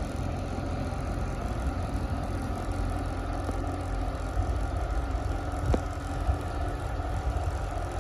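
Steady low rumble of a parked refrigerated ice cream delivery truck running at idle, with one brief click a little past the middle.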